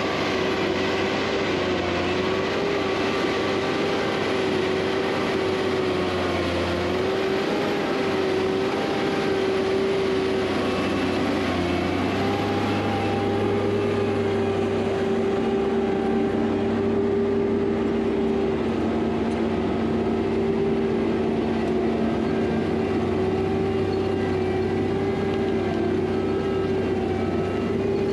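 Steady machinery sound: a whining tone that wavers slightly in pitch, over a low engine rumble that shifts a little now and then.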